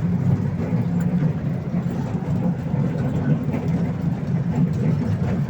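Park toy train running, heard from on board: a steady low rumble of its engine and wheels.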